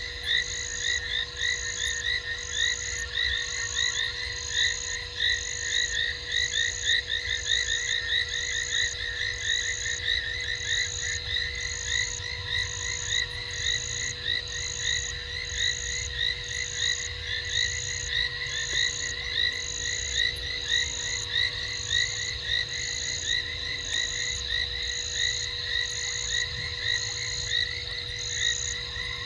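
Frog chorus at night: many frogs calling in dense, rapid trills, with a higher call repeating about once a second over them and a faint steady hum beneath.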